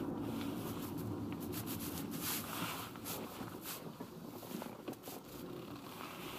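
A 2006 Audi A4 B7 running, heard from inside the car, its engine sound fading as it eases off, with short dry scratchy crackles coming and going.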